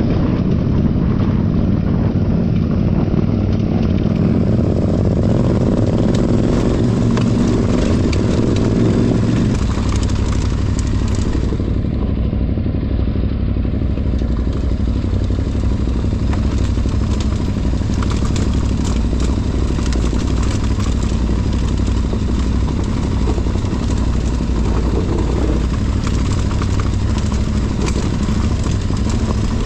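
Adventure motorcycle engine running steadily while riding, with its note changing about ten seconds in.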